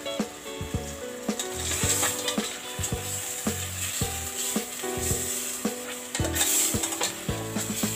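Boiled chicken pieces sizzling as they are sautéed and stirred in a stainless steel pot, with knocks of the spoon against the pot. A melody of background music plays underneath.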